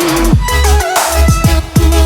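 Background music: an electronic track with heavy bass and deep bass notes that slide down in pitch, over a steady beat.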